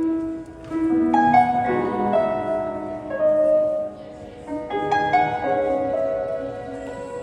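Music: a soft piano introduction of held chords, new notes struck about once a second.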